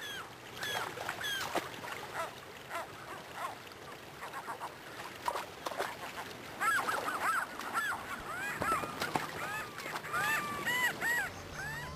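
Gulls calling over rushing river water: repeated short, arched cries, sparse at first and coming thick and fast in the second half.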